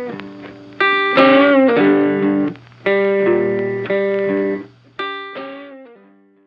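Guitar music: plucked chords struck one after another, the last fading out near the end.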